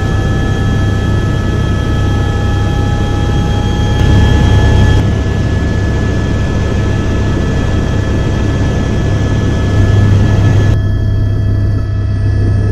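Helicopter cabin noise in flight: a steady low rotor drone with a constant high whine from the engine and gearbox. The sound jumps abruptly about five seconds in and again near eleven seconds, where recordings are spliced together.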